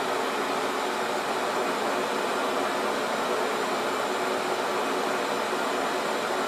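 Steady Boeing 737-800 flight-deck background noise: an even rushing hiss with a faint steady hum underneath.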